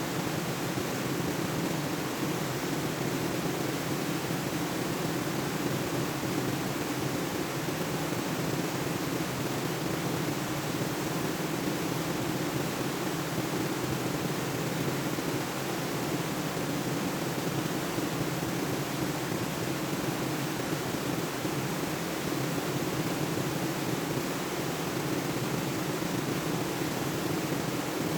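Steady, unbroken rush of a waterfall and stream.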